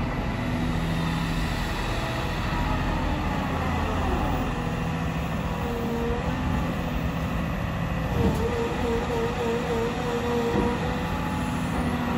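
Caterpillar M318F wheeled excavator's diesel engine running steadily while the upper structure slews and the boom and bucket move. A hydraulic whine dips and wavers in pitch from about four seconds in.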